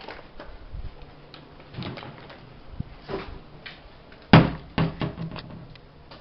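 A sliding glass door being opened, with a sharp knock about four seconds in as it slides open, among scattered lighter knocks and footsteps on a wooden floor.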